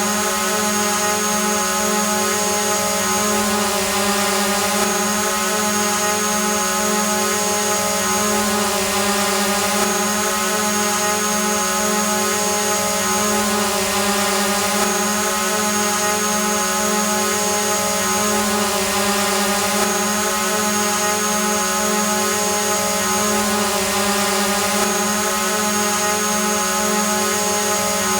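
Hovering drone's propellers humming steadily, several pitches held at once, with a thin high whine that drops out briefly every few seconds.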